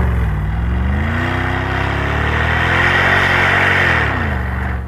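Land Rover Discovery engine revving: the revs dip, climb over about two seconds, hold, then fall away near the end, over a steady hiss.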